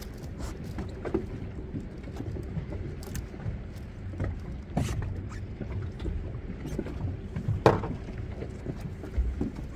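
A small fishing boat's engine running with a steady low hum, with scattered knocks and clatter aboard; a sharp knock about three-quarters of the way through is the loudest sound.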